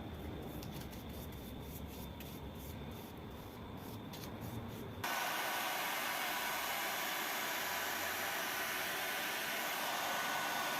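Steady abrasive rubbing, as of sanding, that starts abruptly about five seconds in. Before it there is a quieter low rumble with light ticks.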